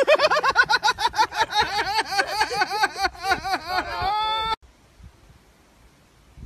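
A person's high-pitched laughing shrieks in quick bursts, about three a second, ending in one long held cry that cuts off suddenly about four and a half seconds in.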